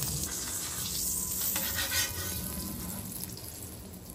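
Tortillas sizzling as they fry in bacon grease on a hot flat-top griddle, a steady frying hiss that eases off a little near the end.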